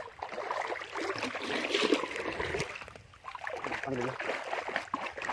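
Water splashing and sloshing as a plastic bucket is dipped into a shallow river and filled.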